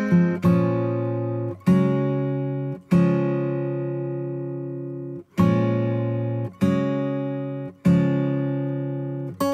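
Background music: acoustic guitar strumming slow chords, one about every second, each left to ring out.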